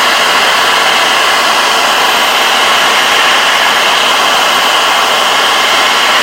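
Electric drill running steadily at full speed. It spins a sewing machine's presser foot bar pressed into 180-grit emery cloth, sanding off rust and grime.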